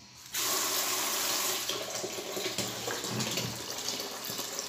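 Kitchen tap turned on, water running steadily into a metal bucket held under the spout to fill it, starting about a third of a second in.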